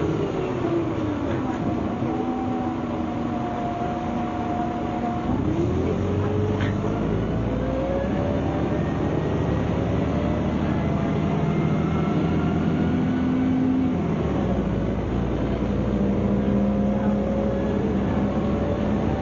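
MCW Metrobus with a Cummins diesel engine, heard from inside the bus: the engine note falls away at first, then climbs steadily from about five seconds in as the bus accelerates. The note changes about fourteen seconds in, then climbs again.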